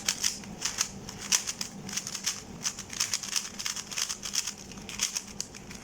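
GAN 354M v2 magnetic 3x3 speed cube being turned by hand, its plastic layers clicking in quick, uneven runs of several clicks a second.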